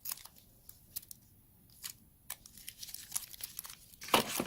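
Clicking, crinkling and rattling of plastic parts and packaging as a tire-repair kit is handled, getting busier toward the end with a louder clatter about four seconds in.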